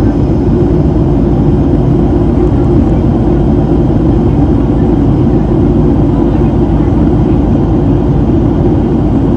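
Cabin noise inside a Boeing 737-700 airliner in flight: a steady low rumble of airflow and its CFM56-7B engines, even throughout.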